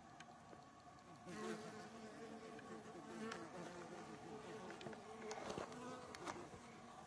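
A flying insect buzzing close by, starting about a second in, its pitch wavering as it moves about.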